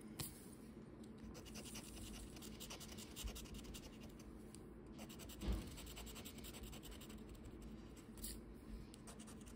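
Rapid, faint scratching of the coating off a paper lottery scratch-off ticket, in quick repeated strokes, with a single thump about halfway through.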